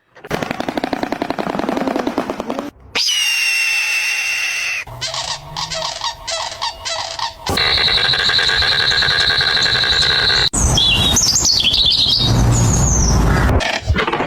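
A string of short animal and bird calls cut together, each clip changing abruptly to the next: a run of rapid pulses, then a held pitched call, a choppy stretch, a steady call, and finally calls that glide up and down.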